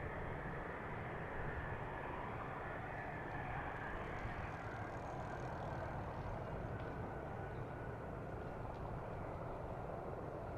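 F-35A Lightning II's single Pratt & Whitney F135 turbofan running steadily at a distance, a continuous jet noise with a faint high whine that fades out about four seconds in.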